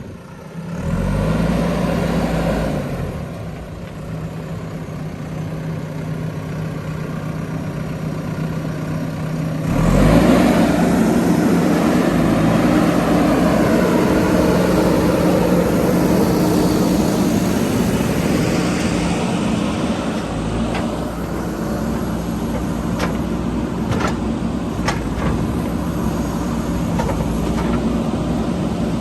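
JCB 3DX backhoe loader's diesel engine running steadily, revving up about a second in and again about ten seconds in. A few sharp knocks come near the end.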